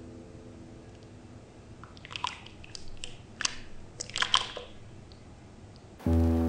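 Metal ladle lifting braised pork belly pieces out of thick soy braising sauce and letting them drop back into the pan. There is a quick run of wet splats and light clinks starting about two seconds in and lasting a couple of seconds. Music starts near the end.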